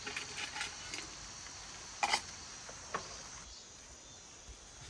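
A few sharp clicks and knocks of things being handled, the loudest about two seconds in, over a steady high-pitched insect chirring.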